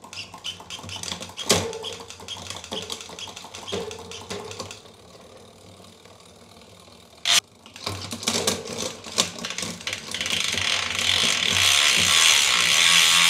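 SRAM GX Eagle Transmission drivetrain with its cranks turned by hand: the chain runs over the cassette with rapid clicking as the electronic rear derailleur shifts across the gears. A single sharp click about seven seconds in. From about ten seconds the chain noise turns into a louder, steady hiss.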